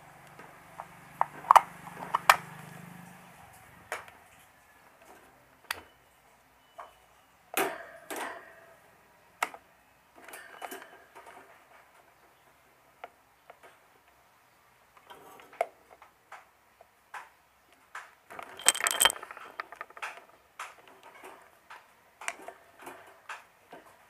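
Hands taking apart a stand fan's plastic switch housing and handling its rotary switch and wires: scattered clicks, taps and light plastic knocks, with a busier clatter late on.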